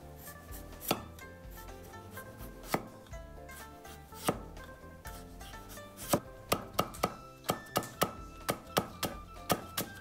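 Cleaver cutting a carrot on a wooden chopping block: a few separate chops about every second and a half, then from about six seconds a fast, even chopping at some three strokes a second as the slices are cut into thin strips. Background music plays underneath.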